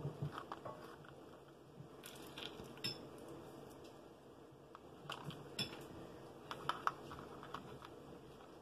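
Scattered light clicks and taps of small craft pieces being handled and set down on a tabletop, over a faint steady room hum.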